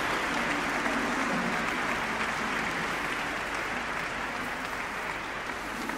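An audience applauding, the clapping slowly fading.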